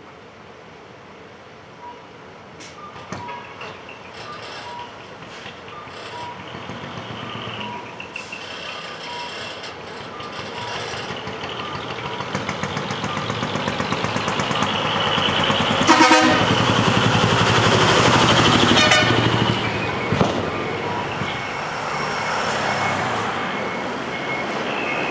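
Decorated trucks driving out, a truck engine growing louder as it comes close and passes, loudest about two thirds through, with horn toots. A row of short, evenly spaced high beeps runs through the first half.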